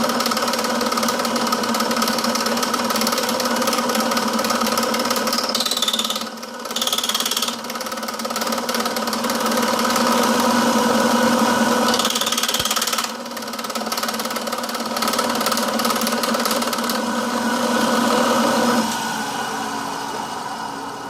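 Milling machine running with its tool bit cutting metal: a steady motor hum under a high cutting hiss, which breaks off briefly about six, seven and thirteen seconds in. Near the end the hum drops and fades as the machine winds down.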